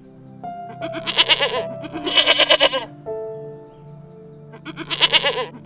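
An animal calling three times, each call lasting under a second with a rapid quaver, over background music of held notes.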